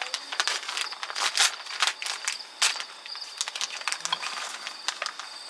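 Plastic bag of frozen fish cakes crinkling and rustling as it is handled and emptied into a pot, mostly in the first three seconds. Crickets chirp steadily in the background.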